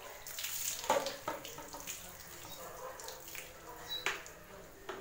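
Water poured from a plastic jug splashing onto a dog's wet coat, loudest in the first second or so, then quieter splashing and dripping as the fur is rubbed by hand.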